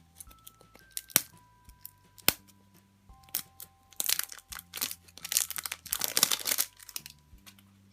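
Surprise-egg packaging being opened: a couple of sharp clicks, then a few seconds of crinkling and tearing of the wrapper, over soft background music.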